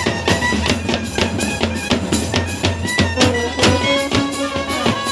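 Loud music with a steady drum beat and a melody.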